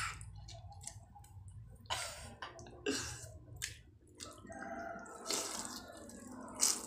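A person slurping and chewing a forkful of instant noodles, a mix of soupy and fried noodles, making wet sucking and smacking sounds at irregular intervals. The loudest slurp comes near the end.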